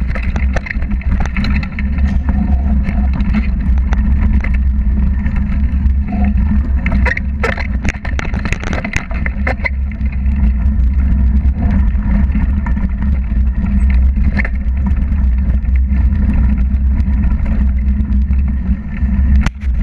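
Mountain bike on a dirt trail heard through a bike-mounted action camera: a steady low rumble of tyres and wind buffeting the camera, broken by scattered sharp clicks and rattles from the bike and the trail.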